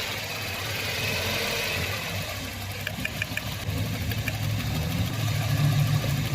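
Car engine idling with an uneven, unsteady beat, typical of a misfire, and a few light ticks partway through.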